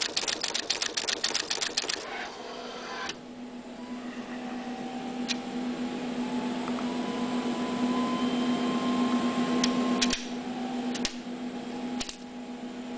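Universal Instruments 6241B axial component inserter running its insertion head, a rapid even mechanical clatter of about seven or eight strokes a second, as it places axial resistors and diodes into a board. The clatter stops about two seconds in, leaving the machine's steady hum with a faint rising whine and a few single sharp clicks near the end.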